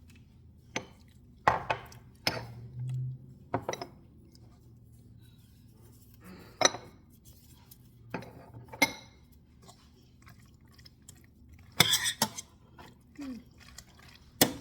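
A utensil clinking and knocking against cookware while food is stirred and scooped: irregular single clinks, with a short burst of clatter near the end.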